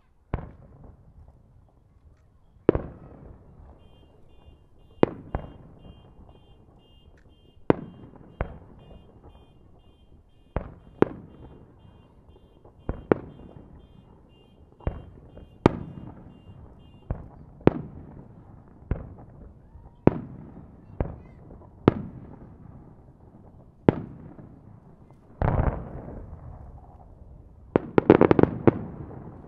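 Aerial firework shells bursting one after another, a sharp bang every second or two, each trailing off in an echo. Near the end comes a dense volley of bangs and crackling.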